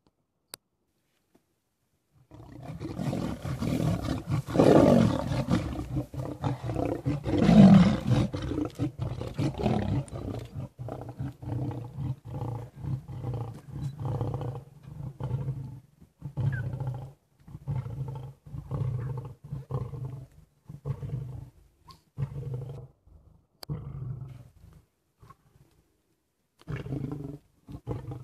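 Lion roaring close by. About two seconds in, a roaring bout starts with a few long, loud roars, then trails off into a long series of shorter grunting roars, a little under a second each, with a last few near the end.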